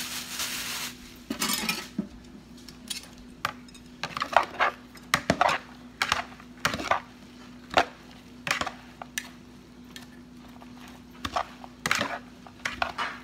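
Salad utensils knocking and scraping in a plastic bowl as a salad is tossed: irregular clicks and clacks, a few every second. A steady hiss at the start stops about a second in.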